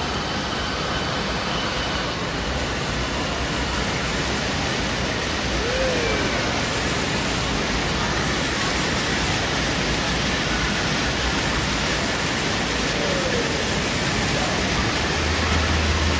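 Steady rushing noise of running and splashing water in an indoor water park, with faint voices and two brief falling calls about six and thirteen seconds in.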